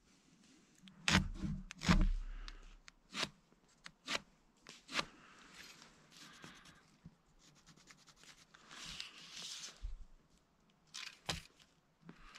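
Handling noise of gloved hands working a metal framing square against a log end: a few dull knocks about one to two seconds in, scattered sharp clicks and taps, and rustling of gloves and jacket.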